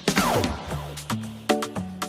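Background music with rhythmic percussion and pitched instrument notes.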